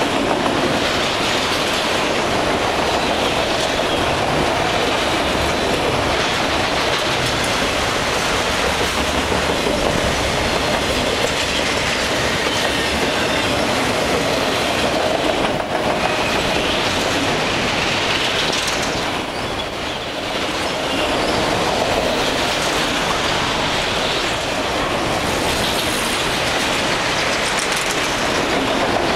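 Freight train of autorack cars rolling past close by: a steady loud rumble and clatter of steel wheels on the rails, with a thin wheel squeal now and then.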